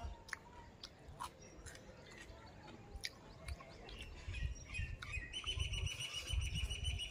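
A bird's fast trill of repeated high notes in the last two seconds, over scattered short clicks of a man chewing and mixing rice and fish by hand on a steel plate.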